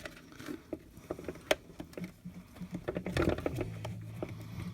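Light clicks and taps of plastic dash trim clips and wiring being handled, scattered and irregular. A low steady hum comes in about three seconds in.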